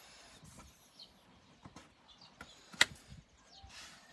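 Quiet handling of a picture book held up to the camera: faint rustles and light clicks, with one sharp click about three seconds in.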